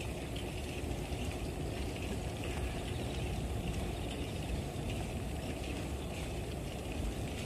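Steady wind rush on the microphone and road noise from a bicycle riding along a paved path.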